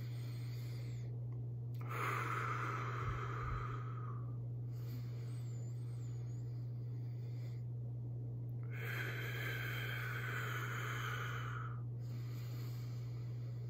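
A man breathing slowly and deeply, in through the nose and out through the mouth. There are two long, loud breaths, starting about two seconds and nine seconds in, with quieter breaths between, over a steady low hum.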